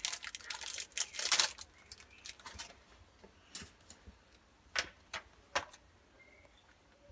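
Foil booster pack of trading cards crinkling as it is opened and handled, then a few light, separate clicks and taps of the cards being handled.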